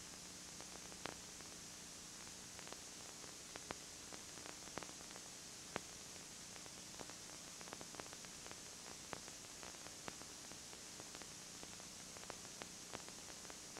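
Steady tape hiss with a faint low hum and scattered sharp clicks: the noise floor of a videotape audio track with no recorded sound.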